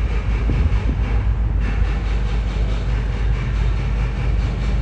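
Steady low rumble of boat engines manoeuvring a superyacht in harbour, with added hiss coming in about one and a half seconds in.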